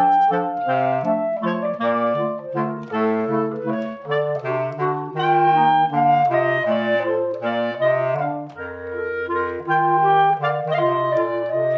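Clarinet quartet playing in harmony: a melody over inner parts and a low bass line, with brisk note changes. The bass line sits below the range of a B-flat clarinet, taken by a lower clarinet.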